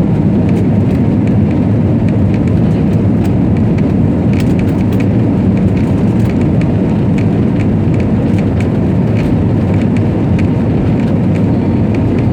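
Airliner engine and airflow noise heard inside the passenger cabin during takeoff: a loud, steady rush, with faint light rattles on top.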